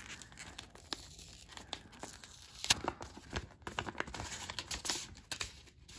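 A sticker seal being peeled off a paper envelope and the envelope opened by hand: paper crinkling and tearing with irregular crisp ticks, the loudest crackle a little under three seconds in.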